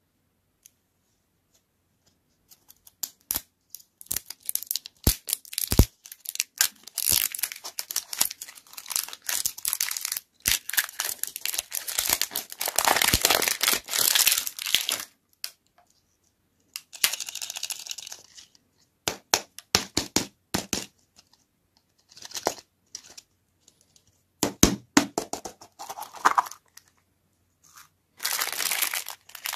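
Crinkly plastic wrapper being torn and peeled off a toy-and-lollipop ball in dense bursts, starting about three seconds in, with many sharp clicks as the hard plastic ball is handled and opened. A small plastic bag crinkles near the end.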